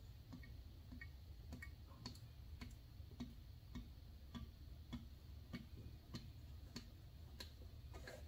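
10W30 motor oil glugging faintly from an upturned quart bottle into the engine's oil filler, a soft regular glug about every half second.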